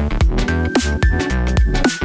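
Background electronic music with a fast, steady beat of punchy drum hits and a held high synth note.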